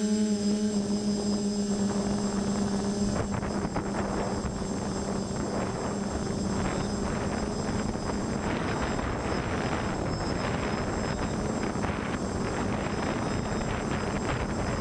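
Multirotor quadcopter with 1100 kv brushless motors and 10x5 propellers running in flight: a steady motor hum, joined about three seconds in by a rush of propeller and air noise.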